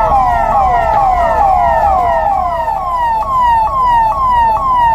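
Electronic emergency-vehicle sirens sounding in quick repeated falling sweeps, about two a second. Two sirens overlap at first, then one carries on alone.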